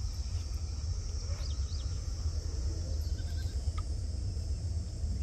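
Outdoor ambience: a steady high insect drone with a few faint bird chirps over a low rumble.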